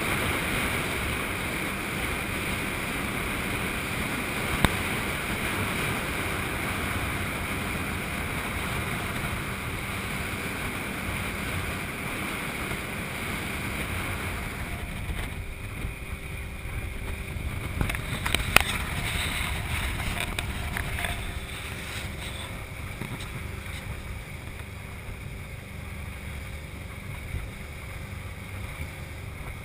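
Speedboat out on the water: steady wind and water noise on the open boat, turning quieter and duller about halfway through. A sharp knock comes about four seconds in and a few clicks past the middle.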